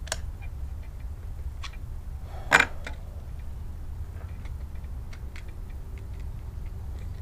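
Handling clicks from an FX air rifle on the bench: scattered light clicks, with one sharp, louder click or knock about two and a half seconds in.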